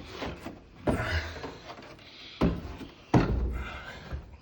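Cordless drill with its clutch set driving screws in three short runs, each starting abruptly.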